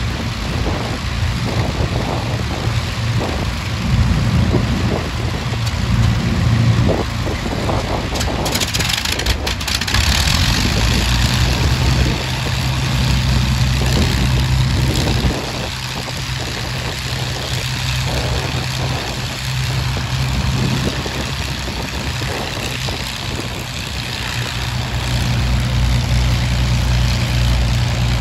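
Avro Lancaster bomber's Rolls-Royce Merlin V12 piston engines running at idle, a steady low drone. About nine seconds in there is a short burst of louder, rougher noise, and the drone grows louder again near the end.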